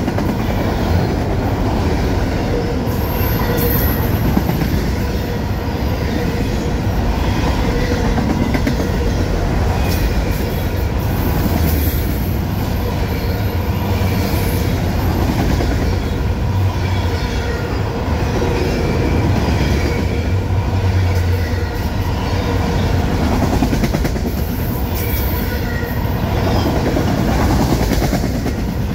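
Autorack freight cars of a long train rolling past close by, a steady rumble of steel wheels on rail with clickety-clack.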